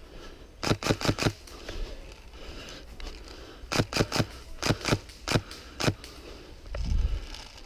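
Polarstar HPA-powered VFC 417 airsoft rifle firing sharp semi-auto shots in quick strings: about five shots a second near the start, four more a few seconds later, then a few single shots. A low thump follows near the end.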